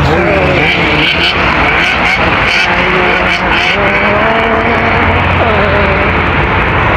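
Road traffic: cars passing close by, a steady rush of tyre and engine noise.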